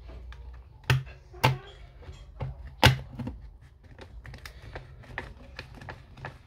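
Sharp clicks and lighter irregular taps of small tools and hard parts being handled while a Time Capsule is taken apart. Three louder clicks stand out, about a second, a second and a half and three seconds in.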